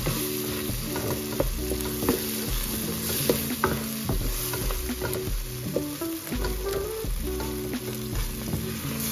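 Egg and tomato masala sizzling in an oiled pan while it is stirred, with the spoon knocking against the pan now and then.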